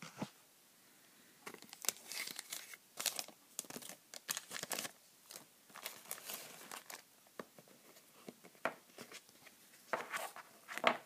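Foil wrappers of Pokémon card booster packs crinkling and tearing open in irregular crackly rustles, loudest near the end.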